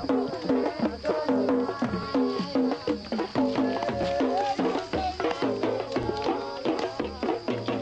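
Music: a quick melody of short pitched notes over clicking percussion, with a low drum beat about once a second.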